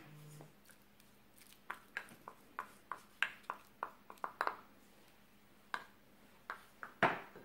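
Small glass bowl knocked against the rim of a glass mixing bowl to shake out fried onion: a run of quick light clinks, about three a second, then a few more spaced out and a louder knock near the end.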